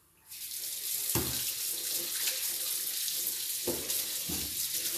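Kitchen tap turned on a moment in, water then running steadily into a stainless-steel sink and splashing over a chayote held under it. Three low thumps from handling in the sink.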